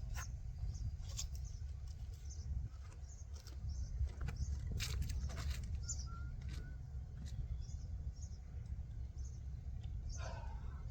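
Steady low wind rumble on the microphone, with sharp clicks and knocks of fishing tackle being handled, a cluster of them about five seconds in. Faint high bird chirps come and go over it.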